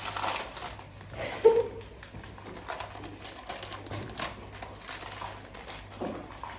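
Scattered light clicks and taps of objects being handled in a kitchen, with a short vocal sound about a second and a half in.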